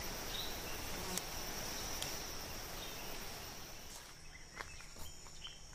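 Forest insects chirring in a steady high-pitched drone, which fades about four seconds in, leaving a few faint chirps.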